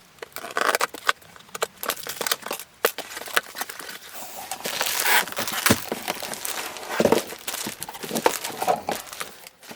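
Plastic packaging crinkling and rustling as it is handled, with irregular sharp crackles; it stops suddenly at the end.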